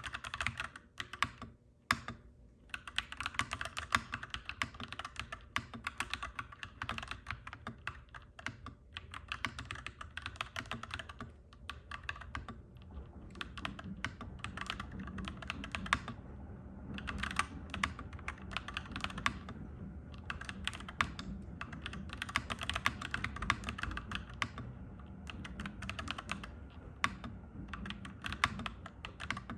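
Continuous clacky typing on a mechanical keyboard, with rapid runs of key clicks broken by brief pauses. A low background rumble swells through the second half.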